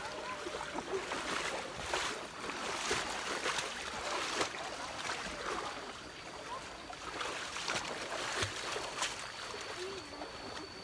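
Running water of a stream, a steady rush with irregular splashes every second or so.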